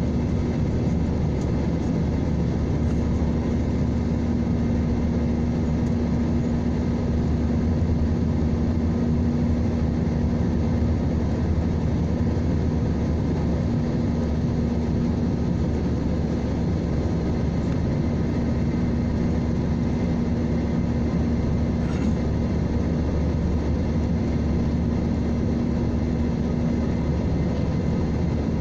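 Airliner cabin noise during the climb after takeoff: the jet engines and rushing air run steadily, with a constant low hum under the roar, heard from a window seat over the wing.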